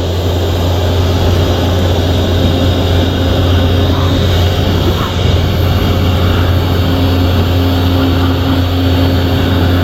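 Electric high-pressure washer running steadily, a loud, even motor hum with a rushing noise over it.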